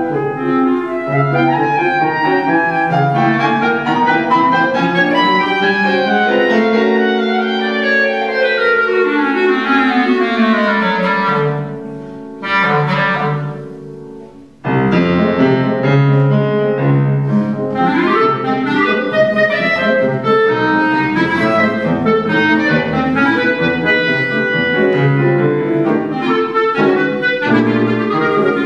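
Clarinet and grand piano playing a classical duet. About halfway through, a long falling passage thins out into a brief quieter moment, then both instruments come back in suddenly and loudly.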